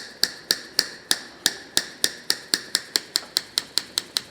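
Rusty needle-nose pliers worked rapidly open and shut, the steel jaws clicking together about four times a second with a short metallic ring, to free the stiff joint after a spray of WD-40.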